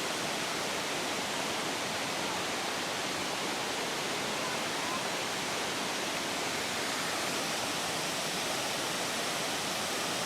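Hagoromo Falls' waterfall rushing: a steady, even roar of falling water with no breaks.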